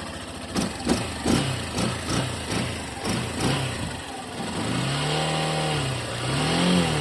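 Yamaha Factor 150's single-cylinder four-stroke engine, with its stock exhaust and air-filter cover still fitted, blipped in quick short revs about twice a second. Then it is held in one longer rev about five seconds in, followed by another near the end. This is the bike's normal factory sound.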